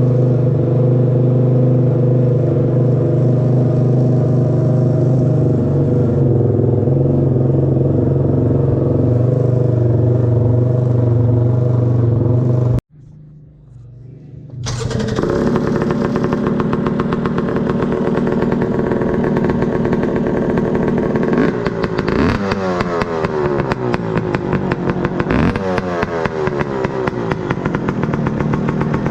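ATV engines running through aftermarket exhaust pipes. One runs steadily and is cut off abruptly about 13 seconds in. After a short quieter gap another runs with a fast pulsing exhaust note and is revved up and down a few times in the second half.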